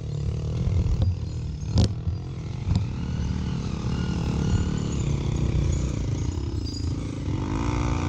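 Motorcycle engine running steadily while the bike creeps down a rocky dirt track, with a couple of short knocks about two and three seconds in. Near the end an engine note rises and falls.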